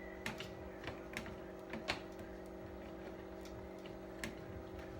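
Light clicks and taps, about six spread unevenly, from the plastic parts and power cord of a flat-screen TV being handled and fitted back together, over a steady low hum.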